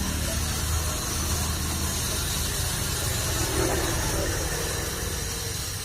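A small motor humming steadily, with an even hiss over it.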